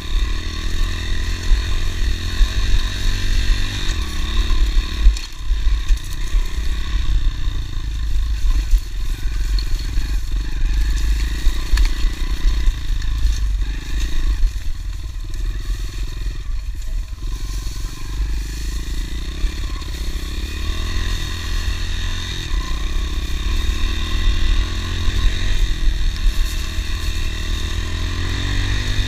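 Honda CRF110 pit bike's small four-stroke single-cylinder engine running steadily under way, with only small changes in revs and a strong low rumble underneath.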